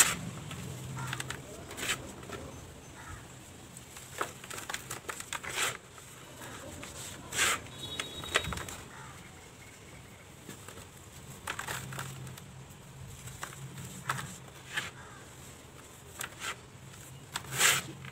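Dry cement balls squeezed and crushed by hand, crumbling into gritty powder: irregular crunching and rubbing with several sharper cracks.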